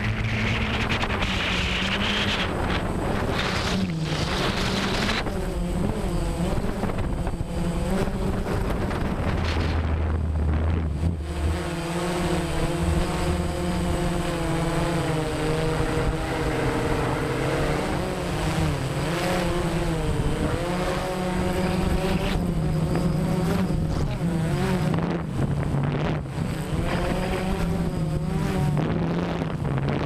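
Multirotor drone's motors and propellers running, heard from its onboard camera: a steady whine in several tones whose pitch wavers up and down as the craft manoeuvres, with some wind noise.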